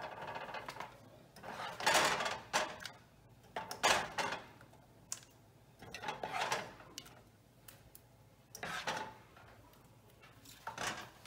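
A plastic ladle scraping a saucepan and knocking against a ceramic bowl as thick curry is spooned out, in short clattering scrapes about every two seconds.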